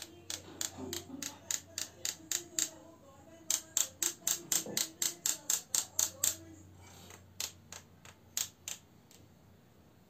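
A paintbrush tapped against a pen, sharp clicks about four to five a second in two runs with a few scattered taps after, flicking a spatter of white paint onto an oil pastel drawing.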